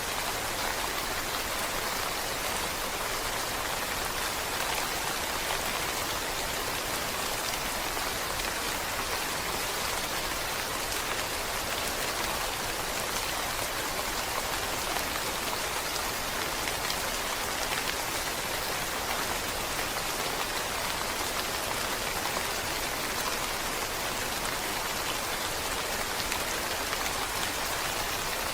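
Steady rainfall: an even hiss of many drops, unchanging in level.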